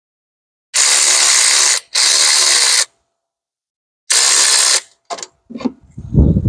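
Red cordless power wrench running in three short bursts, each about a second or less, on a 14 mm alternator bolt. A few irregular metallic clanks and knocks follow near the end.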